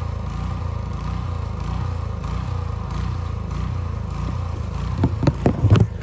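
Walk-behind gas snowblower engine running steadily at idle. About five seconds in, a few loud knocks and rubs from the phone being picked up and handled.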